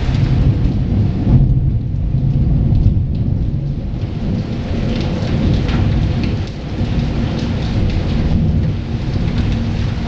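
Heavy rain falling with a continuous low rolling rumble of thunder underneath.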